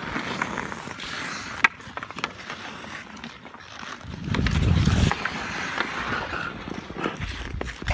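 Ice skate blades scraping and carving across pond ice, with sharp clicks of hockey sticks striking the puck and the ice. A louder low rumble lasts about a second, starting around four seconds in.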